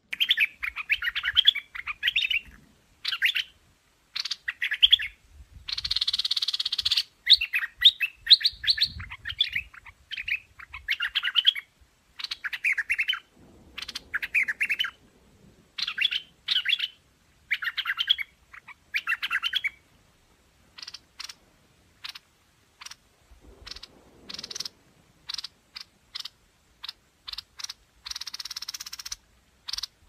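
Streak-eared bulbul calling in bursts of quick chattering, warbling notes separated by short silent gaps, with a harsher, noisier call about six seconds in. From about twenty seconds on the calls turn to short sharp chips, with another harsh burst near the end.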